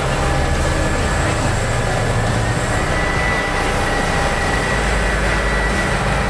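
Komatsu PC-8000 mining excavator's diesel engines running steadily as it crawls off a heavy-haul transporter: a constant low drone with a thin, held high whine.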